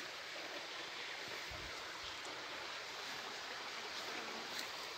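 Faint, steady rushing of a forest stream, an even hiss with no rhythm.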